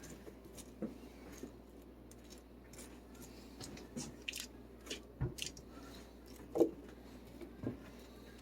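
Faint kitchen handling noises: scattered soft clicks, taps and light crunches from hands working with food and a pan, with a few sharper knocks in the second half.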